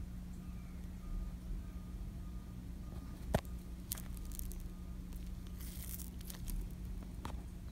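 A steady low hum with a few sharp clicks about halfway through and a short rustle a little later: close handling noise as a turkey sandwich on a plate is touched and pressed.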